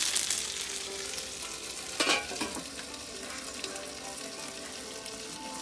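Chicken frying, sizzling steadily in hot fat, with one brief sharper sound about two seconds in.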